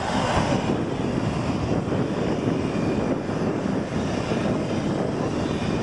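Jet engine noise from a taxiing Boeing 737's CFM56 turbofans, a steady rushing sound at low taxi power.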